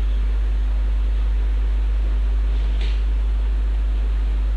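Steady low electrical hum with a faint hiss in the recording, with no speech. A faint short click comes about three seconds in.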